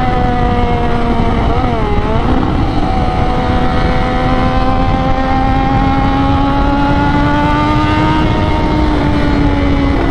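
Triumph Daytona 675's three-cylinder engine pulling at steady, moderate revs through a new aftermarket exhaust, mixed with heavy wind rush. The engine note wobbles briefly about two seconds in, then climbs slowly and eases slightly near the end.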